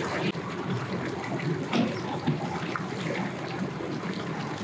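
Water splashing and trickling at a boat ramp, with a couple of short louder splashes about two seconds in.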